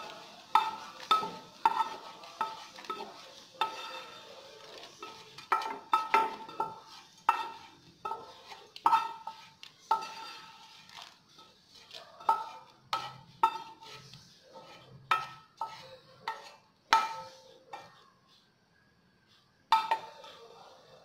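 Wooden spatula knocking and scraping against a frying pan as fried sausage pieces are pushed out of it, each knock making the pan ring briefly. The knocks come irregularly, about one or two a second, and thin out near the end.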